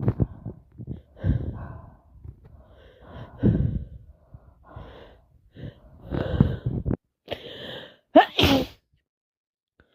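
A person sneezing over and over, with gasping, catching breaths between the sneezes. The sharpest and loudest sneeze comes about eight seconds in.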